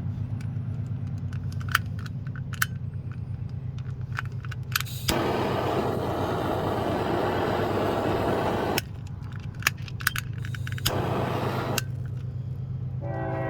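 Two hissing blasts from the heat tool melting a solder-seal heat-shrink connector over twisted wires. The first lasts about four seconds and starts and stops abruptly; a second, about a second long, follows shortly after. Under them runs a steady low hum with small handling clicks.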